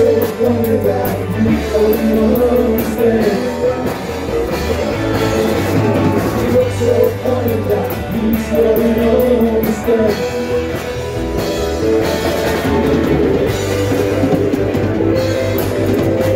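Live rock band playing, with electric guitars, bass and drum kit at a steady beat.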